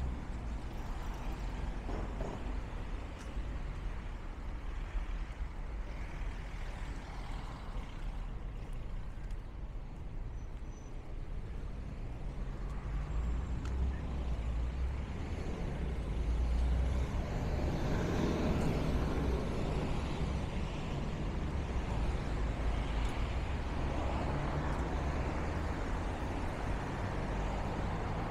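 City street traffic: the steady rumble of passing cars and heavier vehicles such as buses or trucks, getting louder past the middle as a large vehicle passes close by.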